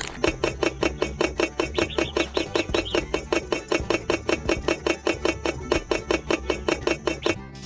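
Rapid, even knocking, about five or six knocks a second over a low steady hum, stopping abruptly near the end.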